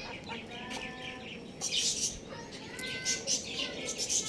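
Young rooster chirping: a string of short, separate peeps and chirps.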